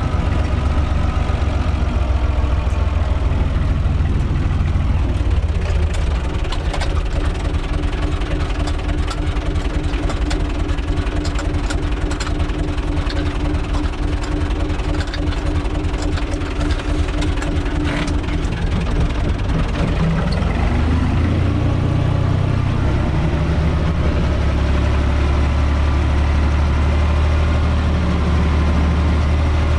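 UTB 445 tractor's four-cylinder diesel engine running, heard from inside the cab, with occasional sharp rattles. Its revs drop about five seconds in, climb again at around twenty seconds, and it then runs louder.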